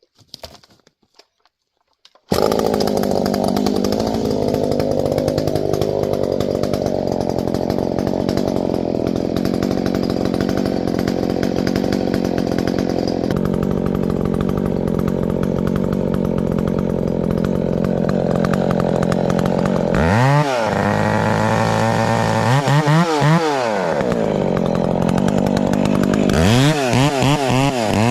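Two-stroke 372 XP chainsaw running loud and steady at high speed, coming in abruptly about two seconds in. In the last third its throttle is revved up and down several times.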